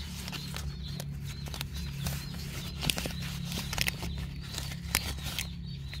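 Banana leaves rustling and crackling as they are handled, with scattered sharp clicks, over a steady low hum.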